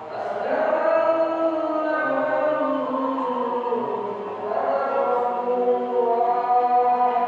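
A voice chanting in long, held notes that glide slowly from one pitch to the next.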